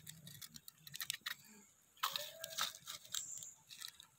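Faint crinkling of a thin plastic bag and small clicks of eggshell as an egg is broken onto spice powder and worked in by hand.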